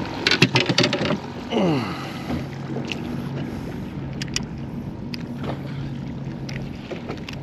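Clicks and knocks of fishing gear being handled at a small boat's cooler, then a short falling sound and a steady low hum with a few scattered ticks as a yellowtail snapper is unhooked.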